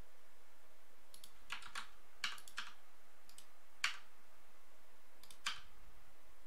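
Computer keyboard keys and mouse buttons clicking sparsely, the shortcut presses and clicks of extrude-and-scale 3D modelling: a dozen or so short, sharp clicks, some in quick runs, the sharpest about four seconds in, over a faint steady hiss.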